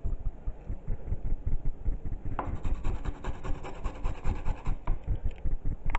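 A whole carrot, skin on, being grated on a fine metal hand grater: a steady run of quick scraping strokes.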